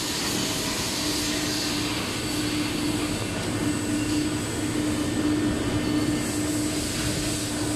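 Steady hum and rushing noise of running workshop machinery, with a constant low drone.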